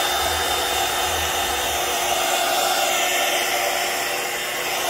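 Heat gun blowing steadily over freshly poured clear resin, run to bring up and pop air bubbles before it cures.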